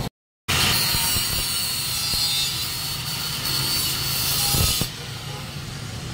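Angle grinder with its disc on a steel box-section tube, a loud hissing grind with a steady high whine. It starts about half a second in and stops about five seconds in.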